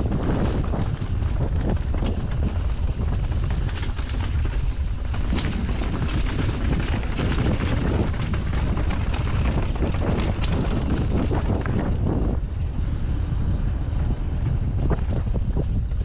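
Wind buffeting a GoPro microphone on a fast descent of a Canyon Strive enduro mountain bike. Through it run frequent clicks and knocks of the bike rattling over rough trail.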